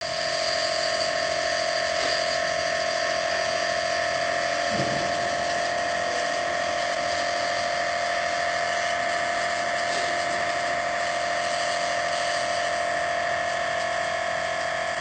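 A small electric motor hums steadily at one constant pitch, with a brief low thud about five seconds in.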